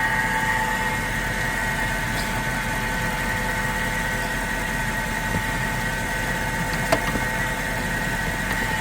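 Mercedes S550's M273 V8 engine idling steadily under an open hood, a constant hum with a steady whine over it. A single sharp click about seven seconds in.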